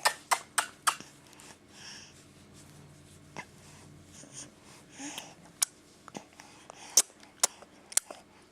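A baby's mouth noises: a quick run of four sharp clicks or smacks, about three a second, then single clicks spread through the rest, with soft breathy sounds between.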